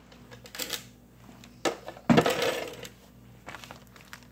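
Cleaned blue crab shells clattering against each other and a plastic freezer bag as they are handled and packed, with bag rustling; a few short clatters, the loudest about two seconds in.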